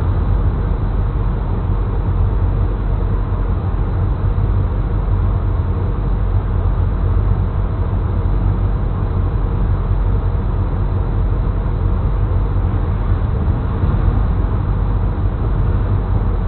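Classic car's engine idling steadily, a low even rumble heard from inside the cabin.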